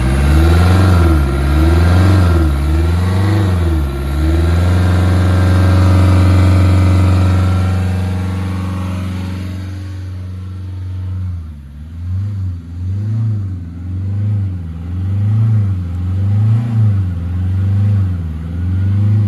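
Hyundai i20's four-cylinder diesel engine being revved: several quick blips, then a held rev for a few seconds that falls away, then repeated blips about once a second. The engine is running again just after being cleared of flood water that had hydrolocked it.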